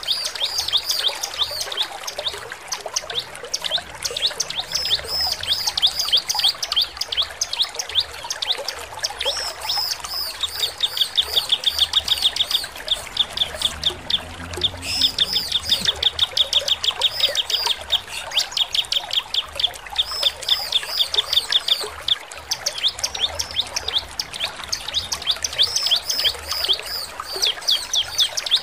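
Bar-winged prinia (ciblek) singing a long, unbroken run of quick, high chirps. Near the middle the notes speed up into fast rattling trills.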